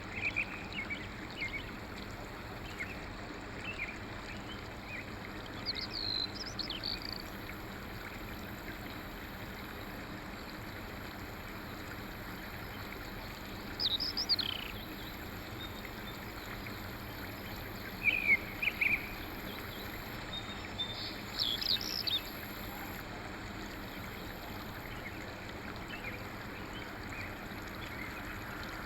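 Songbirds giving short chirps and trills now and then, the loudest about 14, 18 and 22 seconds in, over a steady rushing background noise like a stream.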